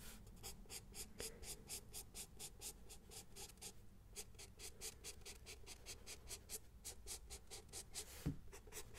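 Pencil sketching on paper close to the microphone: quick short strokes, about four a second, with a brief pause in the middle and another near the end.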